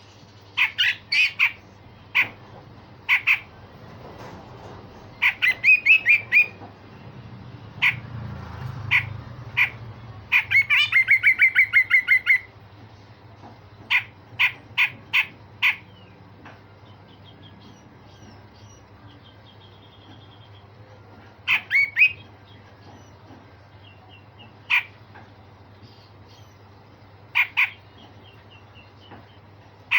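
Cucak jenggot bulbul giving harsh, rasping scolding notes and sharp call notes in short bursts, with a quick run of about eight notes near the middle. A steady low hum runs underneath.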